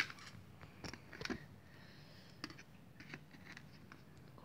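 Light, scattered clicks and taps of clear plastic geometry instruments being handled and set into the moulded tray of a tin geometry box, the sharpest click right at the start.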